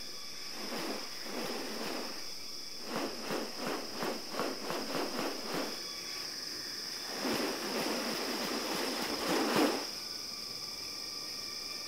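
Rainforest insects droning on a steady high pitch. Over the drone come trains of short rasping pulses, rapid in the middle, then a louder noisy swell that cuts off near the end.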